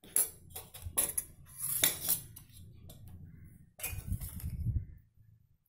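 Steel spoon clinking and scraping against a stainless steel bowl while spice and salt are spooned over raw fish pieces. There are several sharp clinks in the first two seconds, then a busier stretch of scraping and knocking about four seconds in.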